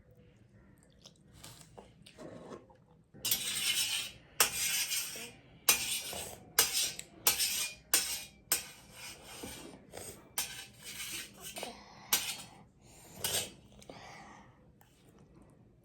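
Eating instant noodles close to the microphone: about a dozen short, noisy bursts with clinks of utensils against the bowl, from about three seconds in until near the end.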